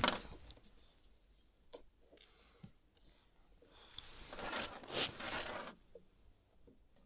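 Old, hardened electrical tape being scraped and peeled off a metal latch piece with a blade: scattered small clicks and scrapes, then a longer rasping tear about four to six seconds in.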